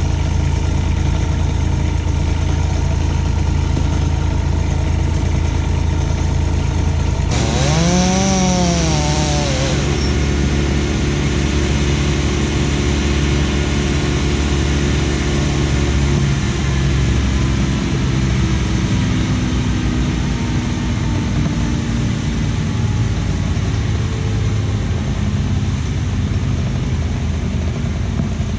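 An engine runs steadily throughout. About seven seconds in, a chainsaw is revved up and back down once over a couple of seconds.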